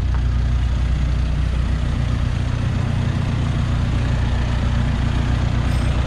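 A vehicle engine idling steadily, with a low even hum.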